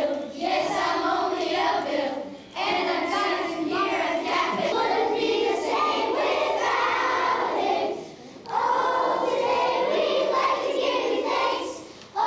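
A group of elementary-school children singing together as a choir, in phrases broken by short pauses about two and a half seconds in and again about eight seconds in.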